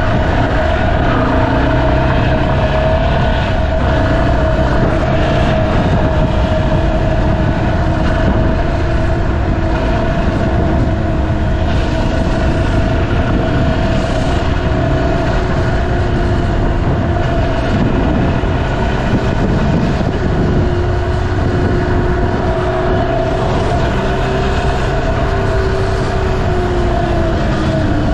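Yamaha Serow 250's single-cylinder four-stroke engine running steadily while riding, with wind rush on the microphone. The engine note climbs a little late on and drops off near the end.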